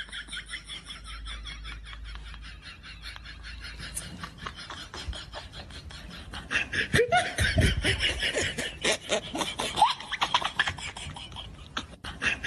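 People laughing in quick repeated bursts, getting louder about halfway through.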